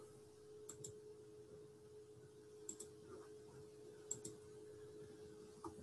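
Near silence with three faint double-clicks of a computer mouse, spread a second or two apart, over a faint steady hum.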